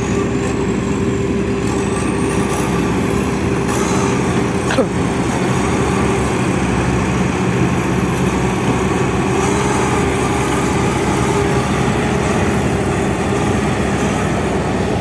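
Heavy-equipment diesel engine running steadily, with one sharp knock about five seconds in.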